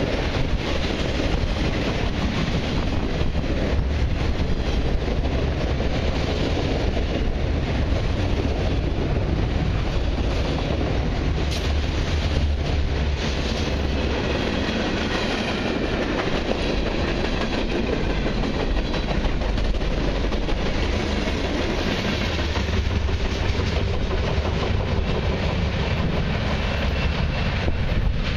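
Freight train cars, autoracks then covered hoppers, rolling past at close range: a steady rumble with the clickety-clack of steel wheels over the rails and faint high wheel squeal at times.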